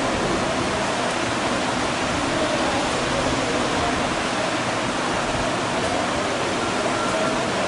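Electric fan running: a steady, even rushing noise of moving air.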